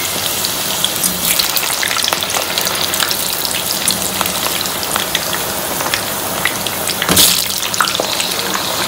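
Whole peeled potatoes deep-frying in hot oil in a frying pan, part-cooking until browned: steady bubbling sizzle with many sharp crackles, and a louder surge of sizzling about seven seconds in.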